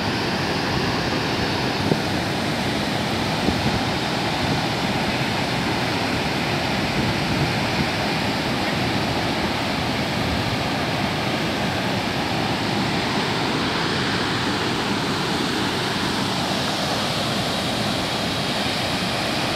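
A large waterfall in full flow, a steady, unbroken rush of heavy water plunging over a rock ledge into the gorge.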